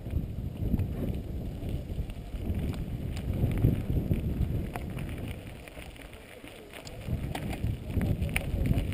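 Mountain bike rolling over a rough dirt trail: wind buffeting the action camera's microphone as a gusting rumble, with scattered clicks and rattles from the bike over the bumps. The wind rumble eases briefly past the middle, then picks up again.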